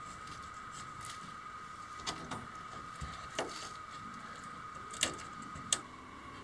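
A handful of short knocks and clicks as a large fiberglass dome panel is pushed and worked into place, over a steady faint high-pitched whine.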